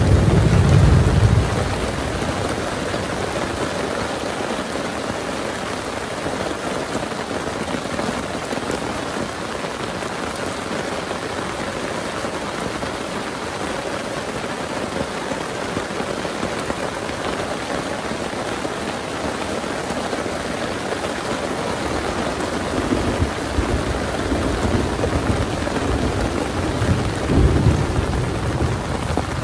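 Heavy rain falling steadily, with rolling thunder: a loud rumble dies away about a second in, and more low rumbles build over the last several seconds.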